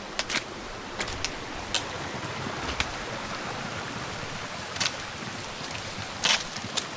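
Hiking steps on rocky ground: sharp, irregular clicks, about nine of them, over the steady rush of a stream.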